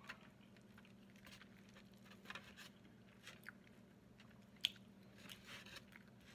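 Quiet eating sounds: a person chewing, with a few light clicks and taps of a plastic fork working in a styrofoam takeout container, the sharpest click a little past halfway. A faint steady hum runs underneath.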